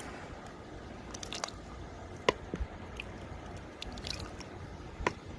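Fruit salad being scooped out of its container: soft squishy, wet handling noises with a few sharp clicks of utensil or container, the loudest about two seconds in and again near the end.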